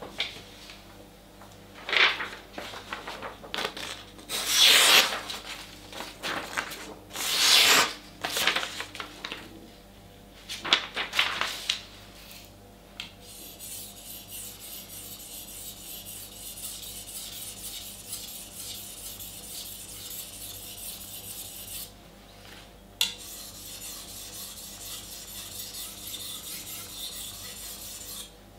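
A few loud knocks and clatters over the first dozen seconds, then a steady, rasping hiss as the steel blade of a Global kitchen knife is stroked across a green whetstone. The hiss breaks off briefly about 22 seconds in, a single click sounds, and then it carries on.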